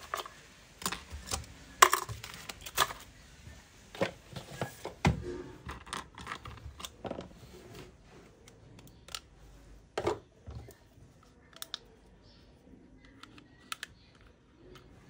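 Irregular light clicks and taps of small phone parts and tools being handled, busiest in the first half and thinning out after about eight seconds.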